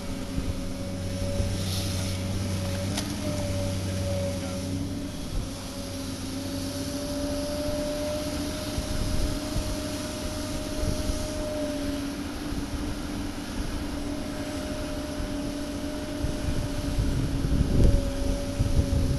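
Diesel excavator engines running steadily, a constant hum with a steady pitched tone over it. A louder low rumble swells briefly near the end.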